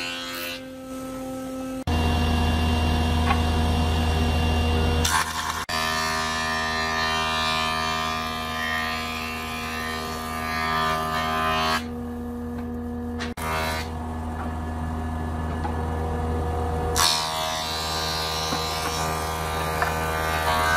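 Electric woodworking machinery running with a steady motor hum and whine. The sound changes abruptly several times, as the footage cuts between machines.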